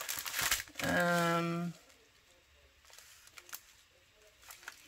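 A short rustle of plastic packaging and paper, then a long held 'hmm' from a woman's voice lasting about a second, followed by quiet handling with a few faint taps.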